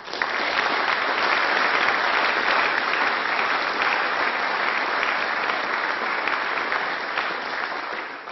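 A crowd applauding: clapping that breaks out suddenly, holds steady, and dies away near the end.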